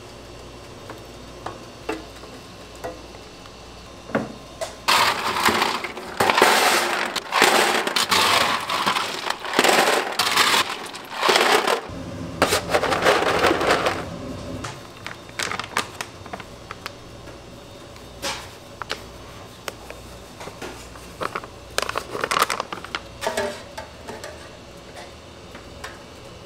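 Ice cubes clattering and crunching against stainless steel as a steel pan is pushed down into an ice-filled sink to chill it: a run of loud, rough bursts lasting several seconds, then scattered lighter clinks and knocks.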